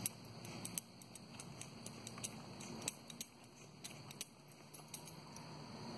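Faint footsteps: a series of light, irregular clicks and taps, roughly one or two a second.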